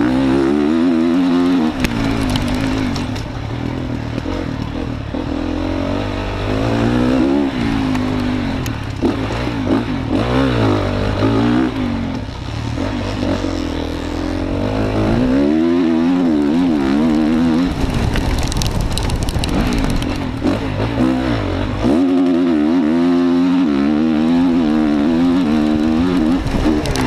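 Motocross bike engine, heard close from the rider's position, revving up and dropping back over and over as the throttle is worked and gears change through corners and straights.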